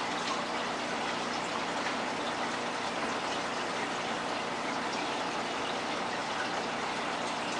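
Aquarium water bubbling and splashing steadily from an airline's bubble stream and surface agitation, with a faint steady hum beneath.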